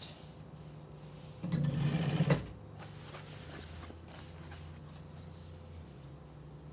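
Singer industrial sewing machine with its motor humming steadily, and a louder run of stitching lasting about a second, about one and a half seconds in.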